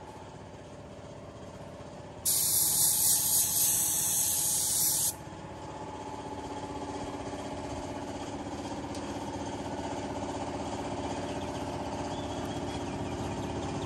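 Gravity-feed air spray gun spraying paint in one loud hissing burst of about three seconds, starting about two seconds in. Underneath, a steady machine hum that slowly grows louder.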